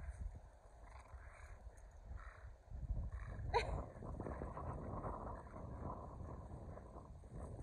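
A Keeshond and a Boston Terrier growling during rough tug-of-war play, a rough rumbling growl that builds about three seconds in and runs on, over the rustle of paws on dry leaves and grass. A brief high squeal cuts through about three and a half seconds in.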